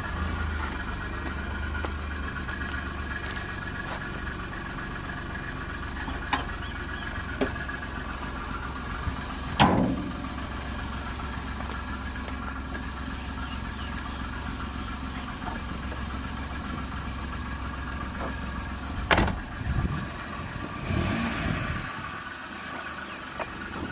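Small car engine idling steadily, with two sharp knocks about ten and nineteen seconds in and a few lighter clicks; the low engine note thins out near the end.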